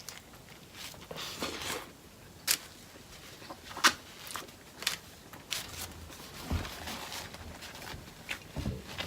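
Eating sounds: quiet chewing with scattered sharp clicks and small crunches from food and its wrapper, and a few soft low thumps.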